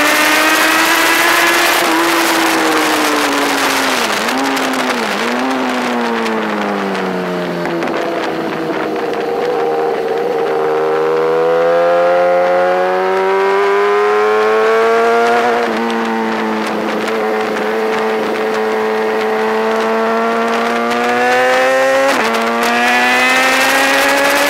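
BMW S1000RR inline-four sport bike engine at race pace. The revs fall with two quick blips as it slows for a corner, then climb steadily under acceleration. Pitch drops suddenly at a gear change past the halfway point, and the revs jump back up near the end.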